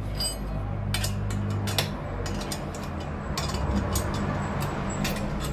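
Hand ratchet wrench clicking in short, irregular runs while fastenings on a motorcycle's exhaust are worked loose, over a steady low hum.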